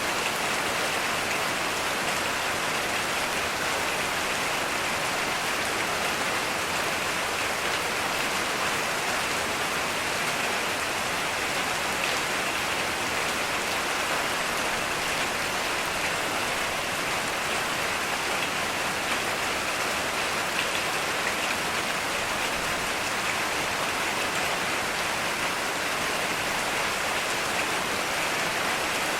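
Heavy rain falling steadily, an even hiss of drops with no thunder.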